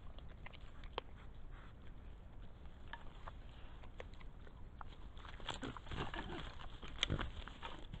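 Wild boar rooting in the ground litter: scattered faint ticks and rustles, then a louder stretch of rustling and snuffling from about five and a half seconds in, over the steady hiss of a trail camera's microphone.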